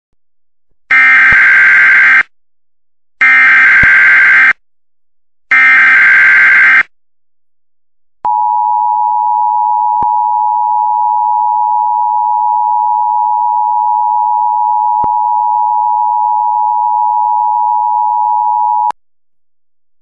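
Emergency Alert System header: three short bursts of SAME data tones, each about a second long with about a second between them. Then comes the two-tone EAS attention signal, held steady for about ten seconds before stopping abruptly, which announces that an emergency alert message follows.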